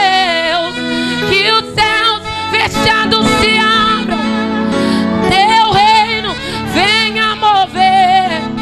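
A woman worship singer sings through a microphone over instrumental backing, her held notes wavering with vibrato.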